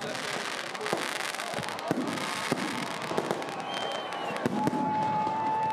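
Aerial fireworks bursting overhead: a rapid, irregular run of bangs and crackles over crowd chatter. A steady whistling tone sounds for the last second or so.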